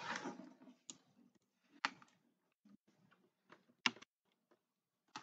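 Faint, sparse computer keyboard clicks at irregular intervals, the strongest about one, two and four seconds in.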